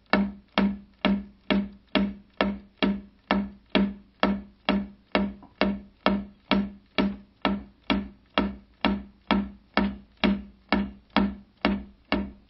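Drumstick strokes on a practice pad, slowed down to match slow-motion footage of finger-technique bouncing: an even stream of hits, about two and a half a second, each a low, slightly ringing tap.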